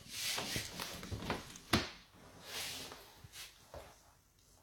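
Chalk scratching on a chalkboard in several short strokes as letters are written by hand, with a sharp tap about halfway through and a few lighter taps after.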